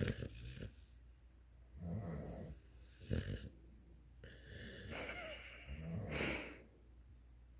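Beabull (beagle–bulldog mix) snoring in its sleep: slow, regular rattling snores, each in-breath followed by a noisy out-breath, with a whistling wheeze about five to six seconds in.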